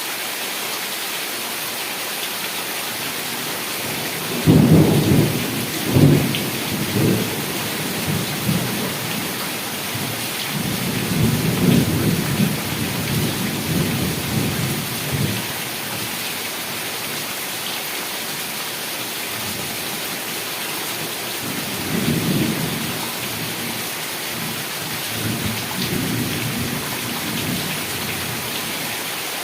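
Heavy rain pouring steadily, with thunder: a loud crack and rumble about four seconds in, another long rumble around the middle, and two weaker rolls near the end.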